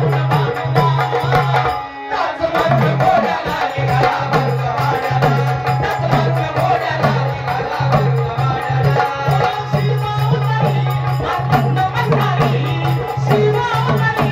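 Marathi folk music, a shahiri song passage without words: a hand drum beats a quick rhythm over a steady low held note, with other instruments above. The music breaks off briefly about two seconds in, then carries on.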